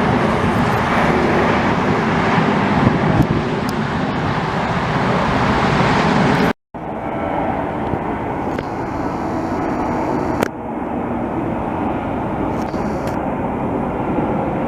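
Steady, loud noise of jet airliner engines mixed with road traffic. About six and a half seconds in, an edit cuts it off for a split second, then a quieter stretch follows with a single click near ten and a half seconds.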